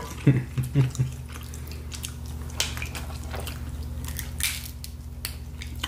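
Boiled crab legs cracked and pulled apart by hand in a sauced seafood boil: a few separate sharp shell snaps and wet handling noises over a steady low hum.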